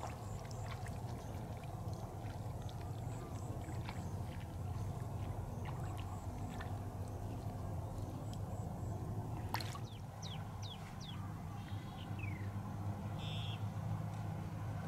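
Shallow water sloshing and trickling as a large fish moves through flooded grass, over a steady low rumble. Scattered light clicks run through it, and a few quick falling chirps come a little past the middle.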